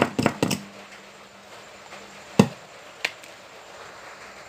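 A quick cluster of sharp clicks and knocks, then two single clicks about two and a half and three seconds in, with a faint hum in between: hand handling of an opened power amplifier's circuit board while a test speaker is connected.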